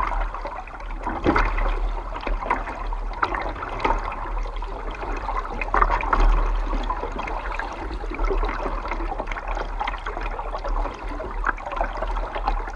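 Kayak paddling: water splashing and trickling off paddle blades and lapping against the hull in irregular little splashes, over a steady low rumble.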